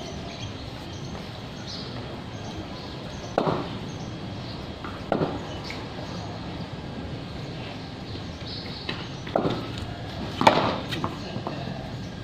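Several short, sharp knocks on hard ground, spaced irregularly, the loudest about ten and a half seconds in, over a steady background hiss.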